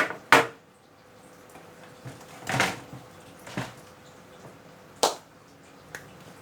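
Computer parts and their packaging being handled: a few sharp knocks and short scraping rustles, spaced unevenly, the longest about two and a half seconds in.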